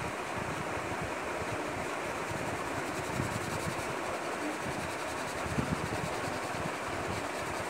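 Pastel crayon rubbed back and forth over paper in continuous colouring strokes, a steady scratchy rustle.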